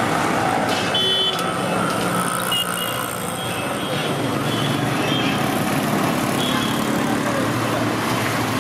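Steady street traffic noise with a few short car horn toots and faint voices.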